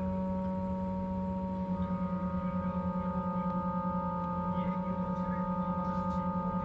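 Film score drone: several held, ringing tones sound together like a singing bowl. About two seconds in, the low tone starts to waver quickly in volume and more high tones join in.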